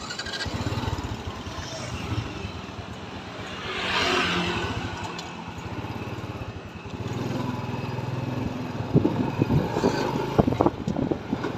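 Motorbike engine running steadily on the move, with a rushing swell about four seconds in and a few sharp knocks near the end.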